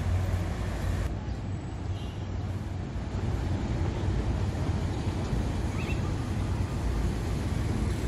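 Steady low rumble of outdoor background noise, with a faint short chirp about six seconds in.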